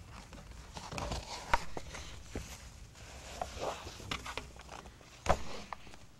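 Books being handled on a small table: paper rustling and pages flapping, with scattered light clicks and two sharp knocks, about one and a half seconds in and about five seconds in.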